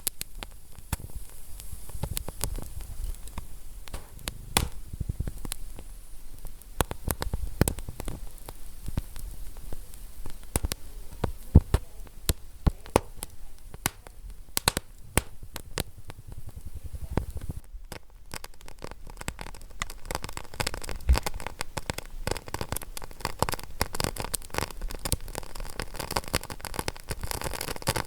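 Wood fire crackling, with irregular sharp pops and snaps over a low steady rumble of the flames. About two-thirds of the way through, the crackle turns denser and brighter.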